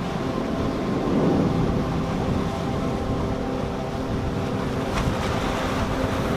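Motorboat engine running steadily with a hum, over rushing water and wind buffeting the microphone. Two brief clicks come about five seconds in.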